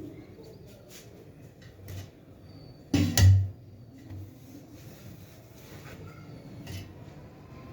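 A loud double knock of something hard being struck or shut, about three seconds in, amid a few small handling clicks.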